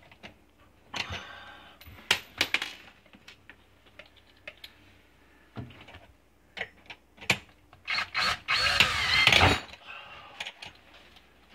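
Cordless drill/driver pushing a screw up through a metal dishwasher mounting bracket into the wood of the countertop: scattered clicks and taps of the screw and bit against the bracket, then about eight seconds in the drill runs for a second and a half. The screw is not biting, for lack of a pilot hole.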